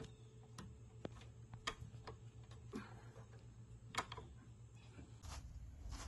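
Faint, irregular metallic clicks and taps, about half a dozen, from hand tools and hardware being handled on a garage door's bottom cable bracket as the cable is reattached.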